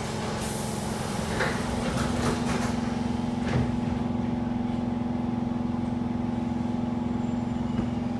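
Siemens C651 train's saloon doors sliding shut, with a hiss just after the start and several knocks between about one and a half and three and a half seconds in. Under it runs the standing train's steady hum, with one held tone, as it waits to depart.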